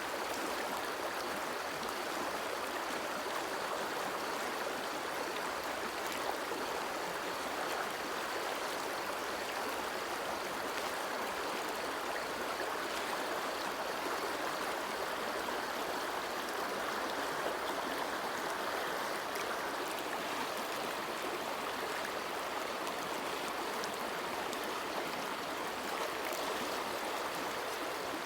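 Running water flowing steadily, an even, unbroken splashing rush with no pauses or changes.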